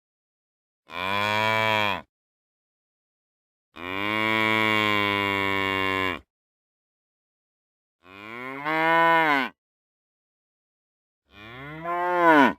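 Cow mooing four times: four separate moos, the second the longest at about two and a half seconds, and the last two rising then falling in pitch.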